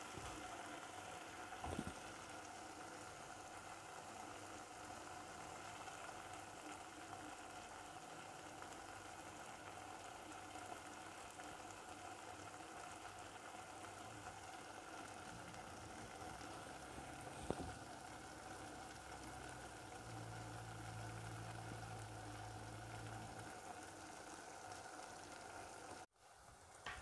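Chicken and carrot curry simmering in a pot, a faint, steady bubbling sizzle, with two light knocks, one about two seconds in and one about two-thirds of the way through. The sound cuts off abruptly near the end.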